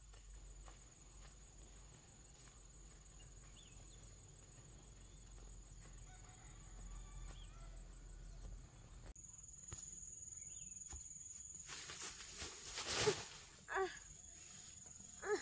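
Quiet rural outdoor ambience with a steady high-pitched drone. Near the end there is a brief loud burst of noise and a few short calls falling in pitch, from farmyard animals.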